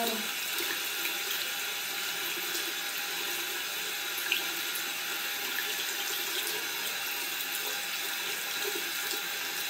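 Bathroom sink tap running steadily, water pouring into the basin as a kitten is rinsed under it. A single short click about four seconds in.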